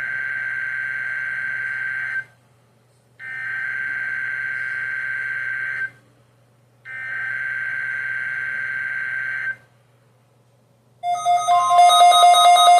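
Three bursts of NOAA Weather Radio SAME digital header data, each a screechy two-tone warble about two and a half seconds long, with a second of silence between them: the coded EAS header opening a required weekly test. About a second before the end, a loud pulsing alert tone starts.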